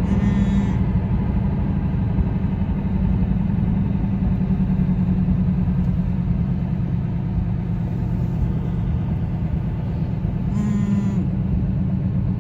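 Car driving at highway speed: steady engine and tyre rumble heard from inside the cabin.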